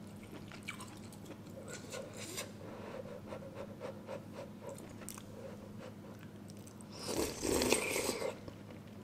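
Close-up eating sounds of a spoonful of runny egg yolk and spicy noodles: soft clicks and small wet sounds as the spoon and fork lift it. About seven seconds in comes a louder second-long mouthful as it goes into the mouth.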